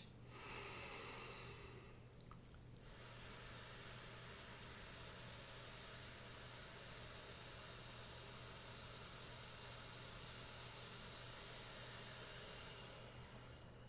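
A woman's faint deep breath in, then one long, steady held 'sss' hiss of about ten seconds starting about three seconds in, fading near the end. It is a singer's breath-support exercise: a slow, controlled exhalation with the rib cage held open.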